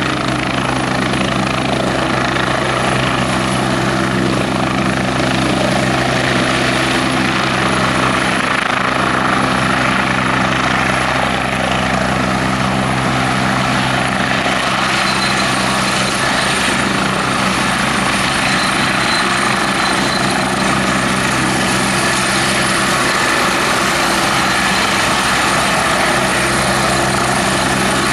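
Westland Wasp HAS.1 helicopter running, its single Nimbus turboshaft giving a high whine over the steady beat of the rotors. Partway through, the rotor note loosens as the helicopter lifts off into a low hover.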